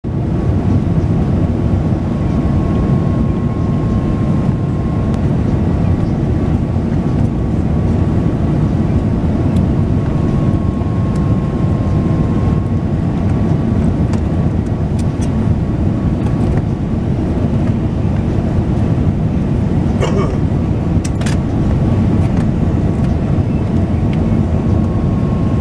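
Cabin noise inside an Airbus A380 on final approach: a steady low rumble of engines and airflow with a thin steady whine above it. Two brief clicks come about twenty seconds in.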